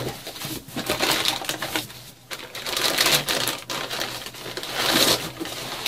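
Plastic packaging and bubble wrap rustling and crinkling as hands rummage through a cardboard box and pull out wrapped parts and nylon bags, with louder surges about a second, three seconds and five seconds in.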